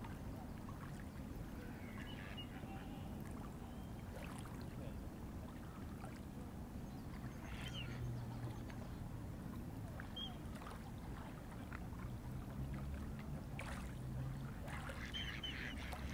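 Small waves lapping at a lakeshore in a steady low wash, with a few faint bird calls about two and a half, eight and fifteen seconds in.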